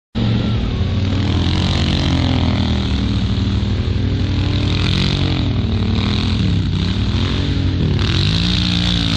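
Kawasaki KFX700 ATV's V-twin engine revving up and down as the quad spins donuts on sand, its pitch rising and falling again and again. The sound cuts in suddenly at the very start.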